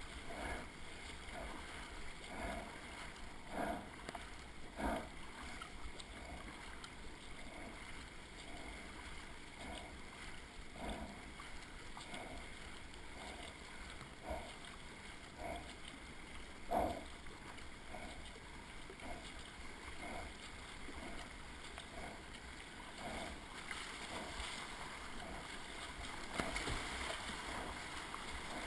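Kayak paddle strokes, the blade splashing into the river at a quick regular pace over the steady wash of water along the hull. Over the last few seconds the rush of whitewater grows louder as the kayak runs into a rapid.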